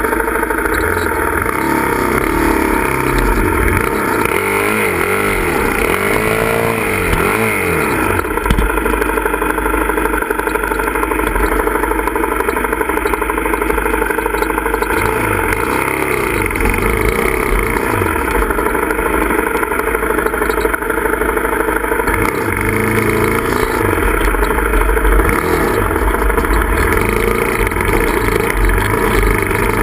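Dirt bike engine running hard on a steep, rough trail, the revs rising and falling again and again as the throttle is worked.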